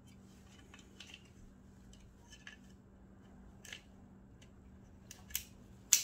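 Small plastic-and-metal clicks and taps of a microwave door interlock switch being pressed into its plastic latch housing by hand, ending in a sharp snap near the end as the switch seats.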